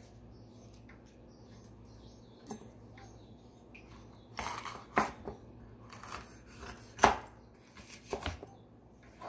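Chef's knife slicing a green bell pepper on a wooden cutting board: irregular knocks of the blade striking the board, starting a little before halfway through, the loudest about two-thirds of the way in.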